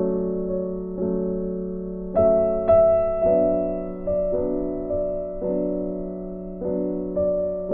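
Background piano music: soft chords struck about once a second, each dying away before the next.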